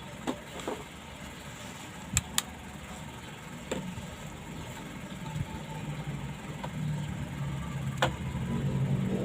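A few sharp clicks and taps, two close together about two seconds in and another about eight seconds in, over a low steady hum that grows louder near the end.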